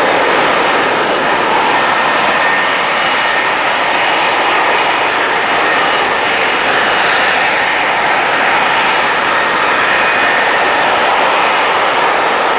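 F-35B Lightning's single Pratt & Whitney F135 jet engine running loud and steady, with a faint high whine over the noise of the jet.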